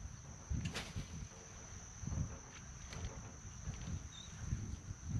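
Wind buffeting the microphone in irregular low gusts, over a steady high-pitched insect trill from crickets in the shoreline grass. A couple of short sharp clicks, about a second in and near three seconds.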